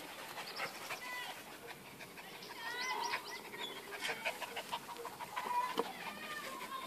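Puppies whining and yelping in many short, high-pitched calls, some sliding upward, with scattered small clicks between them.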